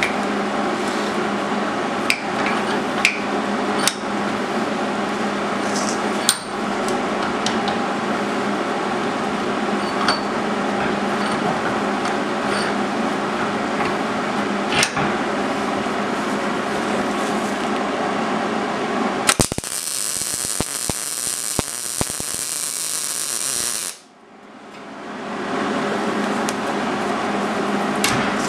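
Steady roar of a blacksmith's forge with a few light metal clinks. For about five seconds near the end a harsh high hiss with crackling takes over. The roar then cuts out and builds back up over a couple of seconds.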